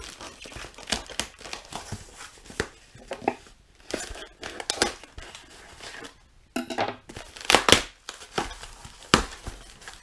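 Parcel packaging being torn open by hand: plastic mailer crinkling, then packing tape and a cardboard box ripping in irregular tears and rustles, with the loudest rips about two-thirds of the way in.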